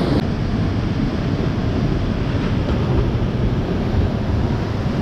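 Whitewater rushing steadily down a steep creek falls, heard close, with low wind rumble on the microphone.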